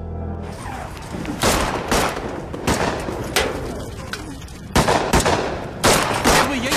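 Gunfire in an action-film soundtrack: about eight separate shots at uneven spacing, some in quick pairs, each followed by a short echo. Low music fades out just before the first shots.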